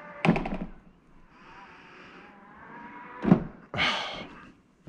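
Plastic lid and seat of a BioBidet Prodigy P770 smart toilet being forced by hand against their motorised hinges: a sharp plastic clack just after the start, a faint whine of the back-driven hinge motor around the middle, then a thump and a rattling clatter near the end.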